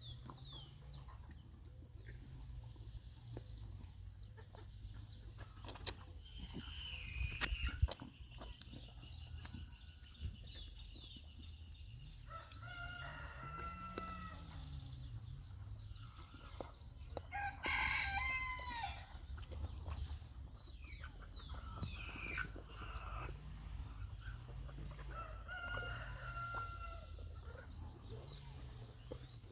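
Roosters crowing several times, each crow a long call, with chickens clucking and small birds chirping in between over a steady low rumble.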